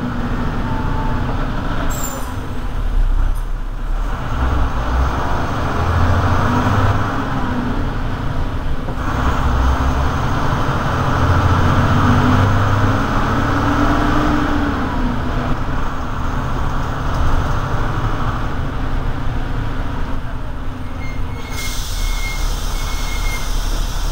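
City bus driving along a street, heard from inside the cabin near the front: the engine runs under a steady wash of road and tyre noise, its note rising and falling as the bus changes speed.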